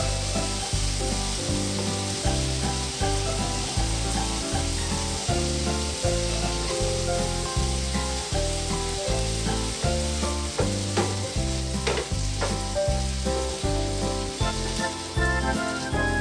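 Background music with a steady beat and bass line, over a steady sizzling hiss.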